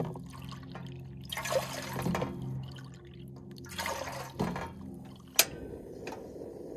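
Water poured from a plastic jug by the cupful into a stainless steel saucepan, in two pours. About five seconds in, a sharp click from the butane camp stove's igniter knob, then the burner's steady gas hiss.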